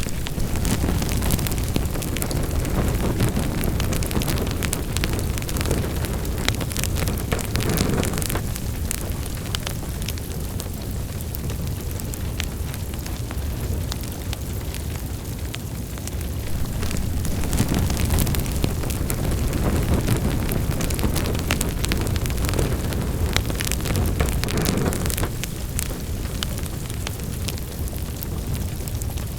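Wood fire in a fireplace burning, with a steady low roar of flames and frequent sharp crackles and pops. The roar swells and eases every several seconds.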